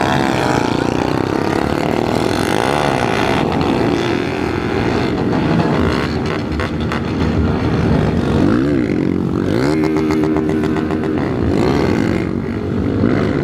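Several motorcycle engines running and revving close by, their pitch repeatedly rising and falling, with the busiest revving between about nine and eleven seconds in.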